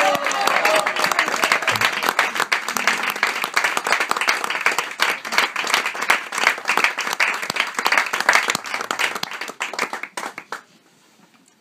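A small group applauding, the clapping thinning out and stopping about ten and a half seconds in.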